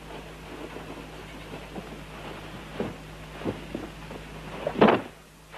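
Heavy blanket being handled and shaken out: a few soft rustles and thumps, then a louder flap near the end, over a faint steady hum.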